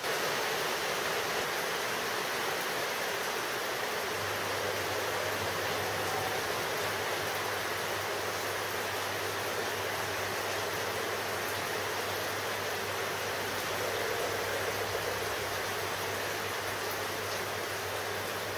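Small bench lathe running steadily while turning down the outside diameter of a cast aluminium hub, a steady whirring hiss. A low hum joins about four seconds in.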